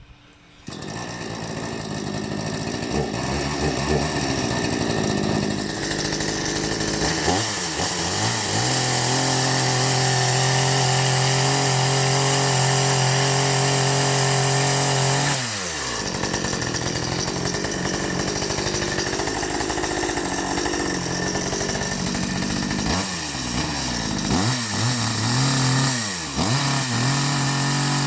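Ferrex 45cc two-stroke petrol chainsaw running after its first start-up, beginning about a second in. It is revved up and held at high speed, drops back, then is blipped several times before being revved high again.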